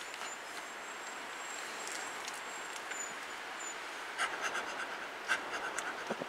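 A man imitating a dog's panting: quick breathy pants, about four or five a second, starting about four seconds in, over a steady outdoor hiss.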